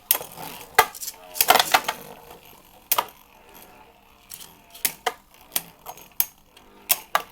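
Two Beyblade spinning tops, one of them Mirage Fafnir F6, clashing as they spin in a plastic stadium: a flurry of sharp clicks and knocks in the first two seconds, then single sharp knocks about every half second.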